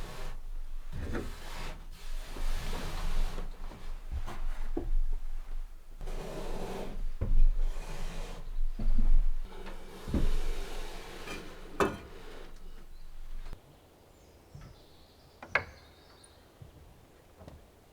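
Wood being handled: irregular wooden knocks and scraping, rubbing sounds for about thirteen seconds. Then it goes much quieter, with a couple of sharp clicks.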